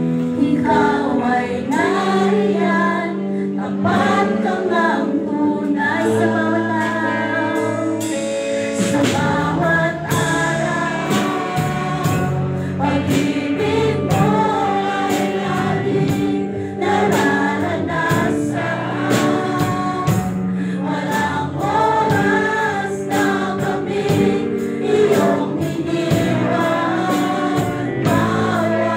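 Live praise band playing a worship song sung in Tagalog: a woman's lead vocal through a microphone over electric guitar, bass, acoustic guitar and a steady drum beat.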